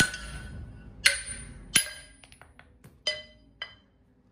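Hand hammers striking a hot steel bar on an anvil, each blow ringing like metal. There are three hard blows about a second apart, then a few light taps and two softer strikes.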